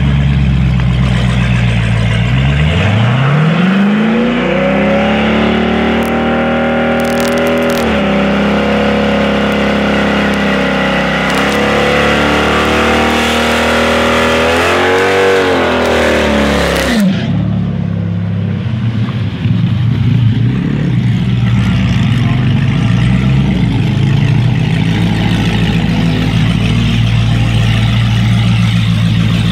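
Dodge Challenger SRT Hellcat's supercharged 6.2-litre V8 revving up about two seconds in and held high through a burnout, the rear tyres spinning and smoking. About seventeen seconds in the revs drop suddenly and the engine runs near idle as the car rolls forward.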